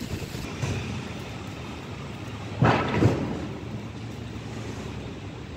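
Wet city-street ambience: a steady outdoor hiss with faint traffic, broken by two sudden loud thumps on the microphone about two and a half and three seconds in.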